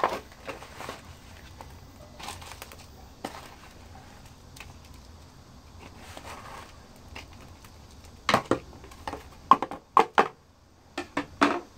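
Handling noise from a small plastic plant pot and potting soil being worked by hand: soft rustling with scattered clicks, then a run of sharp taps and clicks from about eight seconds in.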